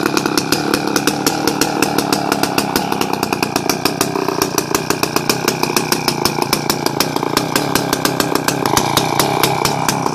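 Danarm DDA MkII chainsaw's Villiers 98cc two-stroke engine idling steadily, a rapid, even train of exhaust pops. It runs evenly after its long-stood carburettor was cleaned and set up.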